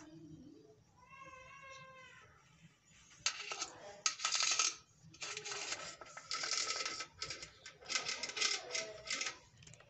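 A newborn kitten mews once about a second in, a short cry that rises then falls. From about three seconds on, louder crackly rustling comes in irregular bursts.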